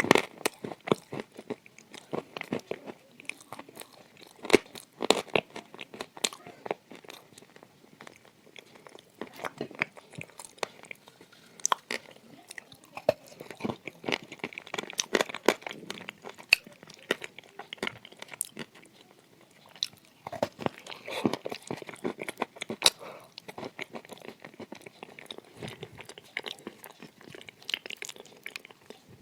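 Close-up crunching of dry edible clay being bitten and chewed, dense crisp cracks and crackles with louder spells of biting several times over.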